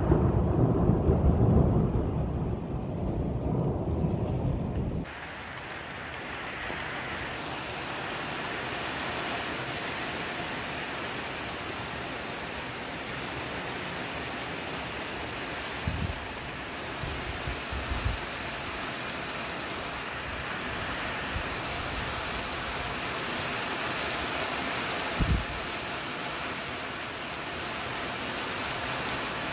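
Thunder rumbling loudly for the first five seconds, cut off abruptly, then heavy rain pouring steadily with a few brief low thumps.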